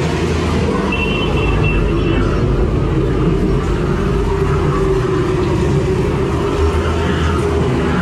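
Haunted-maze soundtrack: a loud, steady low rumbling drone played over the attraction's speakers, with a brief high tone about a second in.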